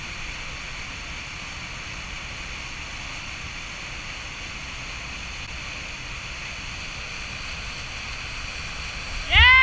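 Whitewater rapids and falls running high, a steady rushing roar of water. Near the end a loud shout from a person rises and falls over it.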